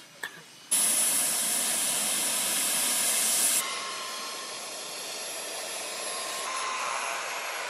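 Model jet turbine running at a steady speed: a loud rushing hiss with a high, steady whine. It starts abruptly under a second in and drops a little in level about three and a half seconds in.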